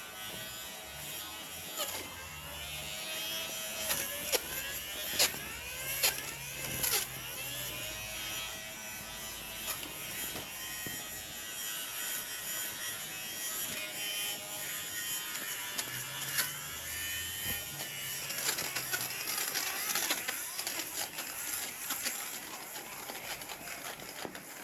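Small electric fabric shaver (pill remover) buzzing as it shaves pills off a throw pillow's ruffle, its motor pitch dipping and rising as the blades press into the cloth. A few sharp clicks come between about four and seven seconds in.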